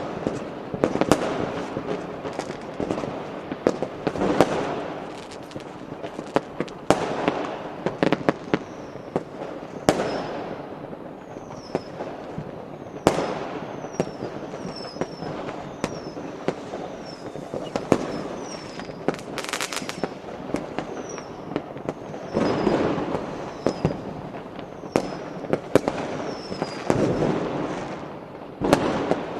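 New Year's Eve fireworks with firecrackers: dense sharp cracks and pops over rolling booms that swell and fade every few seconds.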